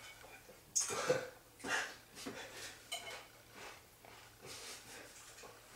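Quiet mouth and breath sounds of people eating breakfast: a few short noisy breaths or chewing sounds, the strongest about a second in, and a light click of cutlery about three seconds in.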